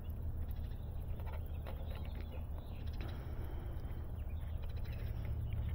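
Steady low rumble, with faint scattered clicks of fiber and a plastic splice tray being handled.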